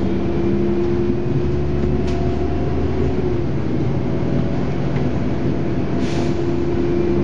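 Volvo Olympian 12M double-decker bus under way, heard from the upper deck: a steady drone from the bus with a held whine over it, and a short hiss about six seconds in.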